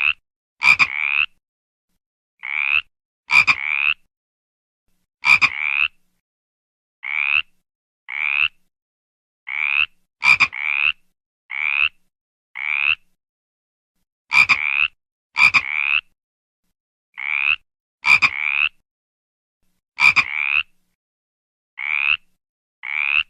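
A frog croaking in short calls about half a second long, mostly in pairs, repeating every second or two with dead silence between them. Many of the calls begin with a sharp click.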